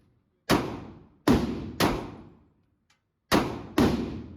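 Five pistol shots fired in an irregular string, two pairs and a single, each sharp crack followed by a short reverberant decay in the range.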